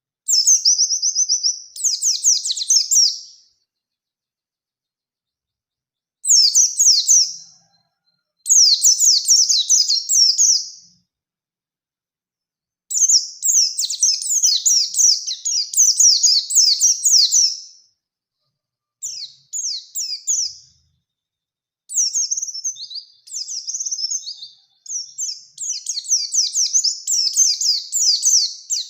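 Pleci Bustomi white-eye singing fast, high-pitched warbling phrases in the long rolling style keepers call ngerol, about six bursts of song with short silent gaps between them, the longest about five seconds.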